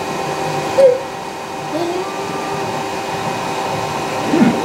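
Raise3D N1 3D printer printing at double speed: a steady whir with several held tones, broken by short gliding tones as the print head's moves speed up and slow down, and one sharp tick about a second in.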